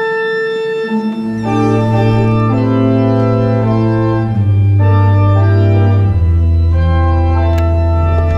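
Pipe organ playing slow sustained chords, with deep pedal bass notes coming in about a second in and the harmony changing every second or so.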